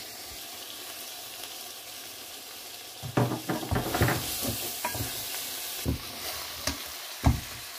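Spinach-and-chicken curry sizzling in an aluminium pot, then from about three seconds in, spoons stirring and scraping through it with scattered knocks against the pot, the sharpest near the end.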